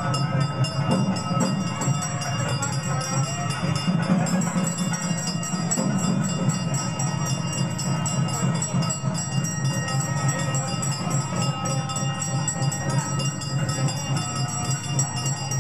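Temple ritual music: continuous ringing of bells and small brass hand cymbals over a steady low drone.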